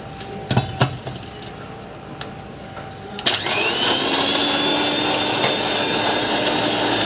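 Countertop blender: the jar knocks twice as it is set on the base, then a little after three seconds in the motor switches on, its whine rising as it spins up and then running steadily, blending lime juice with ice.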